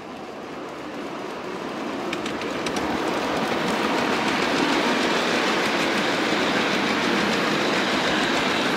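A 5-inch gauge miniature goods train rolls past close by, its wagon wheels rumbling and clattering on the track. The sound grows louder over the first few seconds as it approaches, with a few sharp clicks about two seconds in, then runs steadily.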